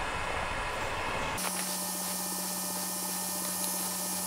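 Steady whirring hiss of the powered-on Ender 5 Pro 3D printer's cooling fans. About a second and a half in, the sound changes abruptly and a steady low hum and a faint high whine join it.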